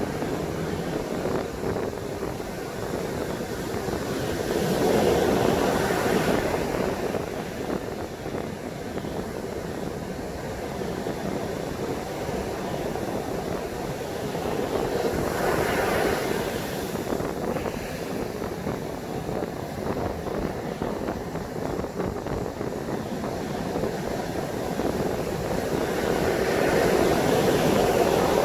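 High surf breaking on a sandy beach: a steady roar that swells as a wave crashes about every ten seconds, three times here, with strong wind rumbling on the microphone.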